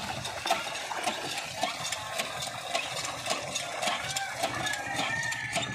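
Water splashing and sloshing at a hand pump and plastic buckets, with many small irregular splashes and knocks.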